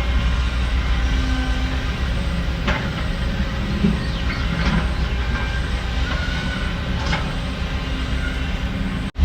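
Heavy diesel construction machinery running, a steady low engine rumble with scattered metal clanks and short squeaks.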